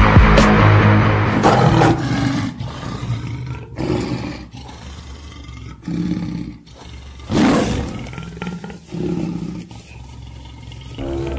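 Tiger roars added as a sound effect, about half a dozen in a row, the loudest about seven and a half seconds in. Background music fades out in the first two seconds.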